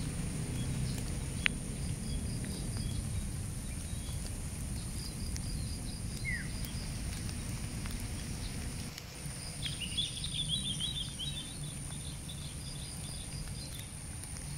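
Outdoor ambience with birds chirping: rows of short high chirps, a short falling call, and a brief flurry of chirps about ten seconds in, over a low rumble and a steady high whine.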